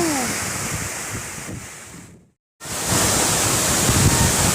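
Steady roar of a heavy waterfall. It fades over about two seconds, cuts out completely for a moment just past the middle, then comes back abruptly at full strength.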